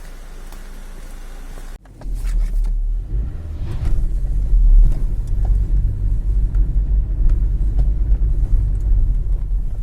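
2004 Citroën C3 on the move: a steady low hum that breaks off abruptly about two seconds in, then a loud low rumble with a few faint clicks.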